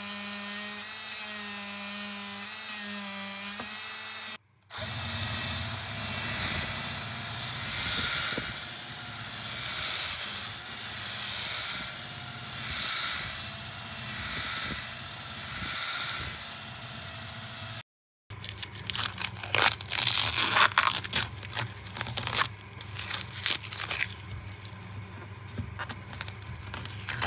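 A handheld rotary tool with a small polishing wheel whining steadily on stainless steel frets, then, after a cut, a large spinning buffing wheel polishing the frets and ebony fretboard, swelling and fading in repeated passes about every couple of seconds. After a second cut, about two thirds in, irregular crinkling and tearing of the paper masking being handled.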